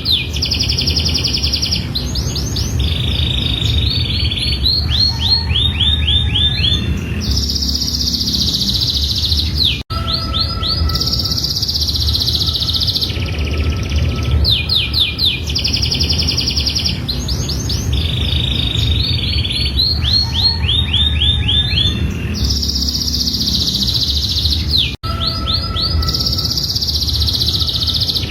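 Domestic canary singing a long, continuous song of rapid rolling trills and buzzy chattering phrases, over a steady low rumble. The same passage repeats about every 15 seconds, with a short dropout at each join: a looped recording.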